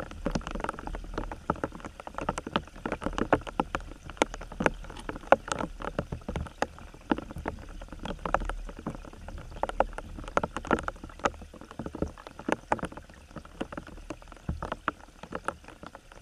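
Water movement picked up by an underwater camera just below the surface: dense, irregular clicks and small knocks over a steady low rumble.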